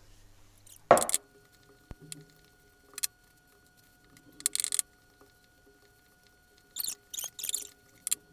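Puff pastry being worked on a floured worktop: short knocks and scuffs of a rolling pin on the counter and dough, and pats of the dough being folded by hand. The loudest knock comes about a second in, with a quick cluster of scuffs near the end as the pin rolls over the dough.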